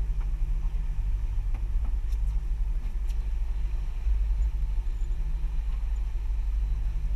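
Sport-fishing boat's engine running steadily, a low even drone under the cockpit.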